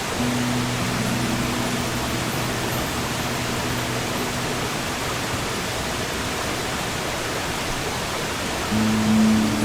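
Steady sea surf with an acoustic guitar: a soft chord rings at the start and fades slowly, and another chord is struck near the end.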